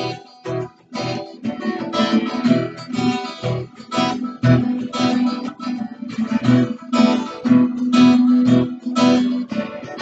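Acoustic guitar strummed in a steady rhythm, its chords ringing between strokes.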